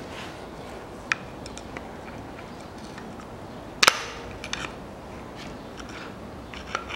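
Metal tool knocking against the exposed camshaft and cylinder head of a Daewoo Nexia 1.5 engine: a sharp click about a second in, one loud metallic clank with a short ring near the middle, then a few lighter clicks.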